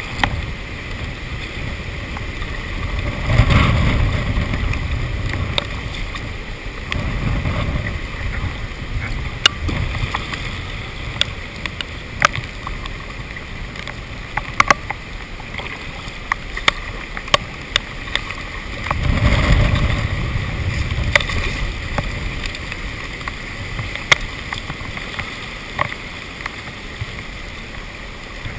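Hailstones hitting a GoPro's waterproof housing: scattered sharp ticks, irregular, over a muffled low rumble of paddling and water that swells twice.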